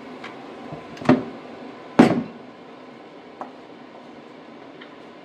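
Cooking utensils knocking against cookware: two loud knocks about a second apart, then a lighter tick, over a steady low hiss.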